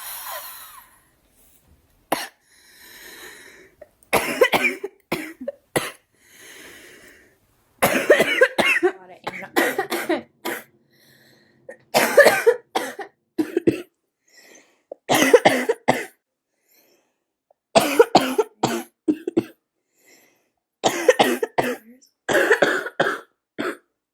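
A young woman's coughing fits, about six clusters of several sharp coughs every few seconds, with breathy inhales between them. It is what she calls a smoker's cough.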